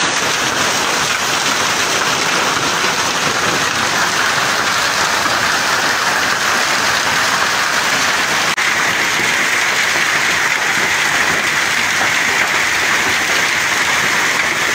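Heavy hail with rain falling: a dense, steady clatter of hailstones striking the ground and parked vehicles.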